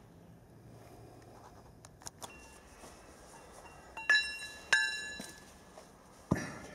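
Steel parts of a Sentinel steam wagon engine's piston rod assembly being handled. A few light clicks come first, then two ringing metallic clinks about four seconds in, and a dull knock near the end.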